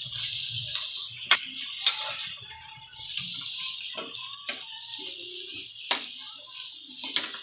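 Large shrimp sizzling in butter sauce in a wok while a spatula stirs them, with about six sharp clacks of the spatula against the pan. Quiet background music plays along.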